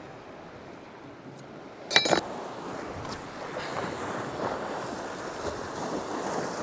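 Waves washing on a rocky shore with wind on the microphone, broken about two seconds in by a single short, sharp metallic clink.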